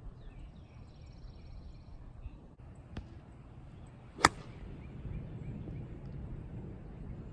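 A golf club strikes the ball on a full fairway swing: one sharp crack about four seconds in. Faint birds chirp in the background over a low wind rumble.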